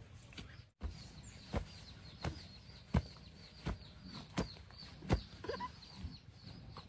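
A wooden digging stick jabbed repeatedly into loose earth to make planting holes: about eight dull thuds, one roughly every three quarters of a second.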